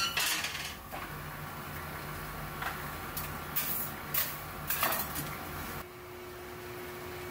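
Spiral dough mixer running with a steady low hum as its hook turns flour in the steel bowl, with several short metallic clatters. The hum stops abruptly about six seconds in, leaving a fainter steady tone.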